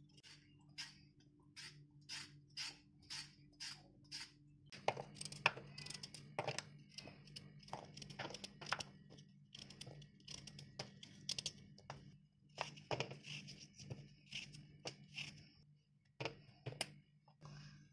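Faint kitchen food-preparation handling noises: a run of light, evenly spaced taps about two a second, then irregular clicks and rustling for the rest of the time, over a low steady hum.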